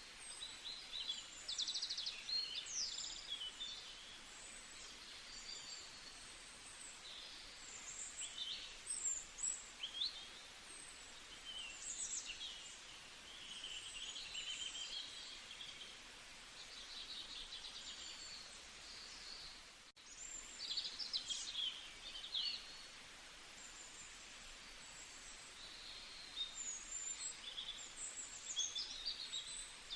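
A chorus of songbirds chirping and singing, with many overlapping short high calls, trills and quick glides over a steady outdoor hiss. The sound drops out briefly about two-thirds of the way through.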